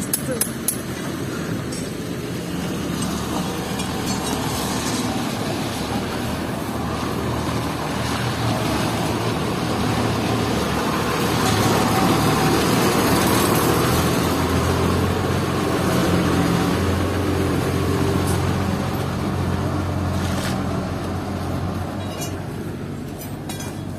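Truck engine running steadily, getting louder for several seconds in the middle and easing off again toward the end.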